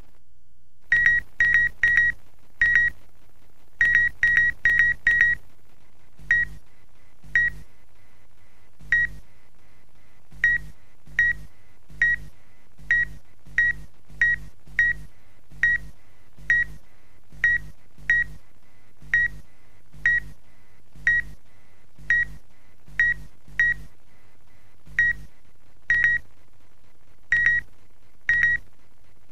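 Short electronic beeps at one steady pitch. They come in quick runs of four or five near the start, then about one a second at uneven intervals, over a faint steady low hum.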